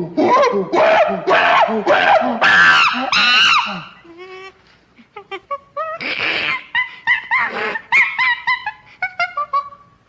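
Chimpanzee calls: a fast run of loud hooting screams, rising in pitch over about four seconds, then quieter rapid short squeaky calls with a harsh breathy burst near the middle.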